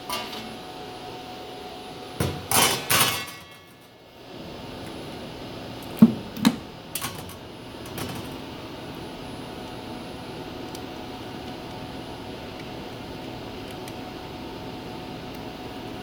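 Sheet-metal clatter and knocks from an HVAC air-handler cabinet's panels being handled: a burst of rattling hits about two seconds in, then two sharp knocks around six seconds and a few lighter taps after. A steady hum runs underneath.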